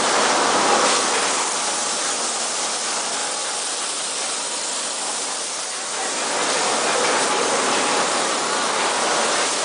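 Cotton-mill blowroom machinery running: a steady rushing noise that dips slightly in the middle and comes up again about six seconds in.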